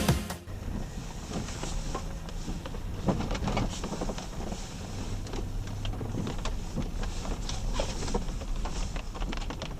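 Music cuts off at the start, leaving the low steady rumble of a vehicle sitting at idle, heard from inside the cab, with scattered light ticks and taps.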